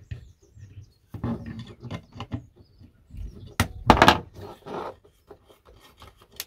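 Small metal clicks and rustles of hands working on a vintage battery cell tester to take off its lead, with two loud sharp clacks about halfway through as a steel adjustable wrench is handled on the wooden bench.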